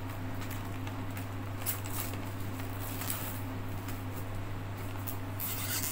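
Thin plastic shrink-wrap crinkling and crackling as it is peeled off a cardboard paint box, with a denser burst of rustling near the end. A steady low hum runs underneath.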